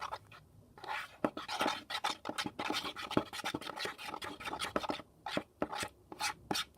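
Spoon stirring PVA glue and gold paint in a bowl: irregular scrapes and clicks of the spoon against the bowl, with short pauses between strokes.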